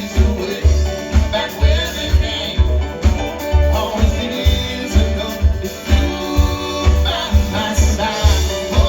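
Live band playing: a steady beat of drums and bass guitar, about two beats a second, under sustained guitar and keyboard chords.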